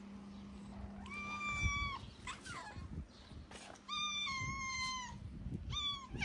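Skinny calico cat meowing loudly from hunger: long, high meows of about a second each, with a short falling one between and another starting near the end.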